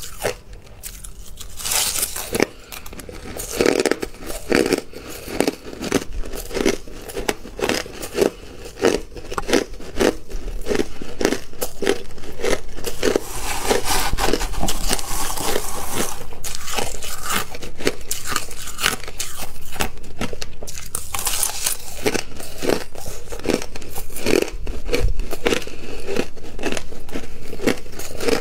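Crushed ice being chewed close to the microphone: a long run of crisp, rapid crunches. A metal spoon scrapes and scoops ice in a stainless steel bowl between mouthfuls.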